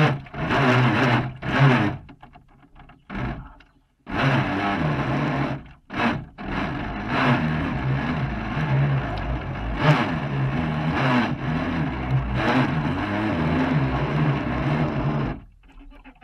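Radio-controlled fishing boat's motor and propeller, heard from on board with water splashing over the hull: a few short throttle bursts, then a steady run of about nine seconds that cuts off suddenly near the end.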